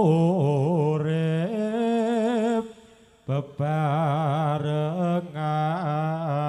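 A solo singer holding long, wavering melismatic notes of a Javanese jaranan song, with a short breath pause about halfway through.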